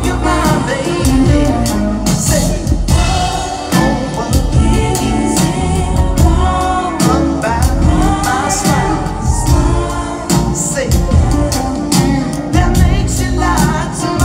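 Live band with guitars, keyboards and drums playing loud, with a lead vocal singing over it, recorded from the audience.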